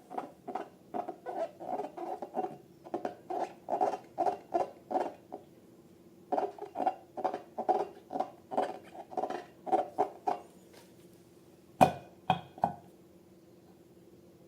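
Rapid squeaky squishing of a rubber balloon and slime squeezed by hand, about three or four squeaks a second. It pauses for about a second midway, and three sharp clicks follow near the end.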